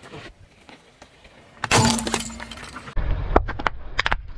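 A car tyre rolls over a bag of plastic bead necklaces and crushes them with a loud cracking crunch, about a second and a half in. After a cut, a low rumble of the tyre follows, with a few sharp clicks as it squashes something filled with blue liquid.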